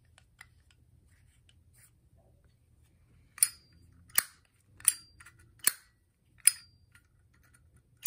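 Copper Zippo lighter's lid flipped open and snapped shut over and over: about six sharp metallic clacks, each with a brief ring, roughly three-quarters of a second apart, starting about three seconds in.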